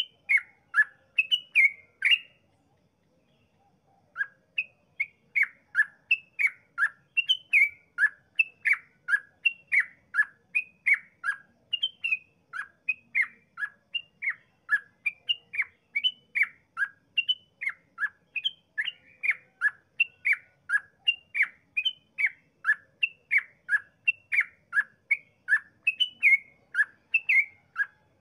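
Yellow-vented bulbul (trucukan) singing its long rapid 'ropel' song: an unbroken run of short, clear slurred notes, two to three a second, breaking off about two seconds in and resuming two seconds later.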